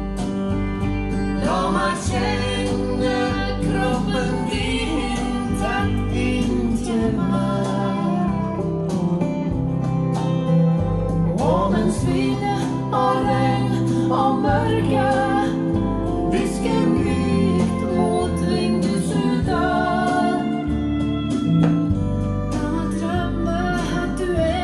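A song with a singing voice over guitar and bass, played through Monitor Audio Platinum PL300 II floorstanding loudspeakers and heard in the room.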